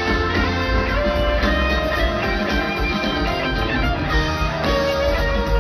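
Rock band playing live through a large PA, heard from within the crowd: a guitar-led instrumental passage over heavy bass.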